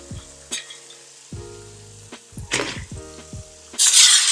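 Mandazi sizzling in hot oil in a wok while they are lifted out with a slotted metal spatula, with a few sharp clicks of the spatula against the pan and a much louder burst of noise near the end. Soft background music plays along.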